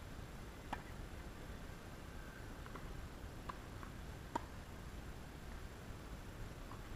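Tennis rally: faint sharp pops of the ball struck by rackets and bouncing on the court, one about a second in and the loudest about four and a half seconds in, with a few fainter ones between.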